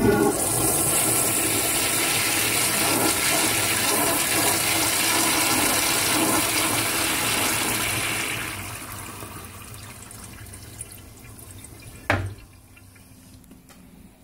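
Crane Walton toilet flushed by its wall-mounted flushometer valve: a loud rushing flush that starts suddenly, runs steady for about eight seconds, then tapers off. A single sharp thump sounds near the end.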